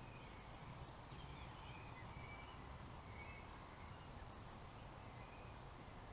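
Near silence: a quiet outdoor background with a low steady rumble and several faint, short bird chirps.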